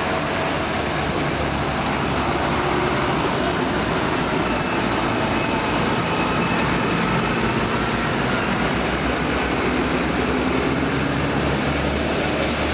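A line of diesel farm tractors, among them a McCormick and a New Holland, driving past one after another, their engines running steadily along with tyre noise on the road.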